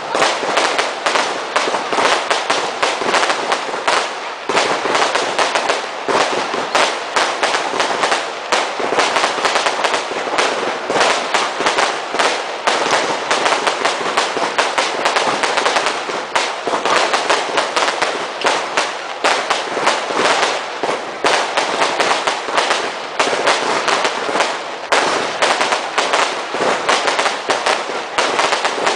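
A dense barrage of Class 2 consumer fireworks and firecrackers: countless sharp cracks and bangs overlap with no break.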